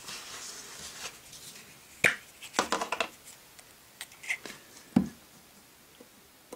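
A Pritt Stick glue stick and a sheet of paper handled on a tabletop: a few light clicks and rustles, then one firmer knock about five seconds in.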